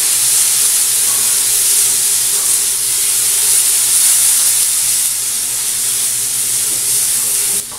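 Onion, green pepper and tomato sizzling on a hot griddle plate, a loud steady hiss of steam with vinegar freshly splashed onto the hot surface. The hiss drops off sharply near the end.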